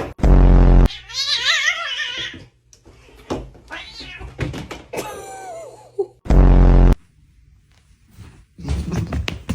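A cat meowing: a long wavering yowl, then a couple of shorter rising and falling meows. A loud low buzzing blast of under a second comes just after the start and again about six seconds in.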